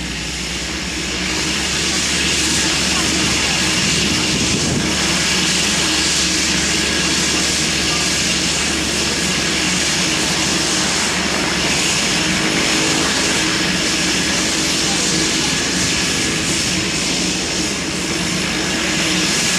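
Cessna 208B Grand Caravan's Pratt & Whitney PT6A turboprop running steadily on the ground: a loud, even propeller and engine rush with a thin high turbine whine on top, rising a little about a second in.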